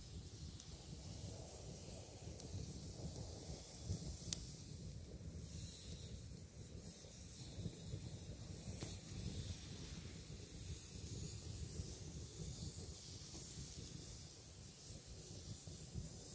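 Steady outdoor ambience: a low rumble with a high, even hiss over it, and a faint click about four seconds in.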